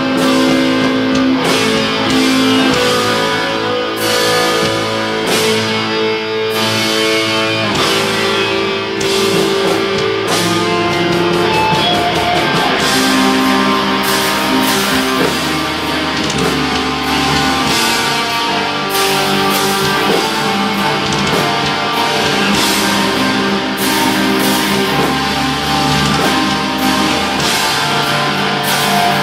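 Live black metal played loud on distorted electric guitars, with drums and keyboard; the drum hits grow denser from about halfway through.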